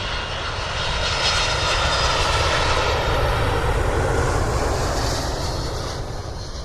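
A loud engine rumble passing by, swelling over the first couple of seconds, holding, then fading away near the end.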